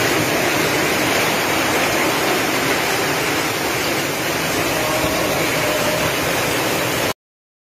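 Heavy rain pouring down, a loud steady hiss that cuts off abruptly near the end.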